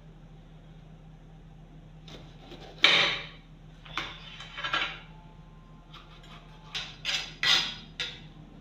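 Kitchen knife cutting bell peppers on a cutting board: separate knocks of the blade striking the board, the loudest about three seconds in, then a quicker run of four chops near the end.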